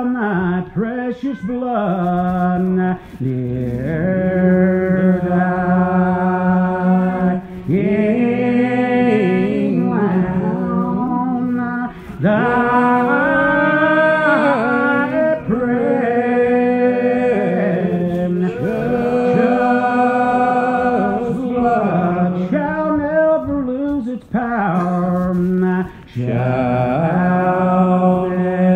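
Slow hymn singing in long, drawn-out held notes, the lines breaking off briefly every few seconds.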